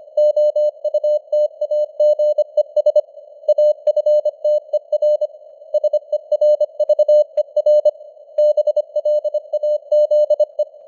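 Morse code (CW) sent as an on-off keyed tone of about 600 Hz at 25 words per minute, over a narrow band of simulated radio receiver hiss, with the signal's strength slowly fading up and down (QSB). The keying stops just before the end, leaving only the hiss.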